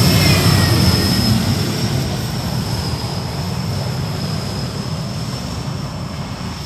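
Four-turbine jet pulling tractor running at full power: a loud roar with a steady high whine over it, slowly fading as it pulls away down the track.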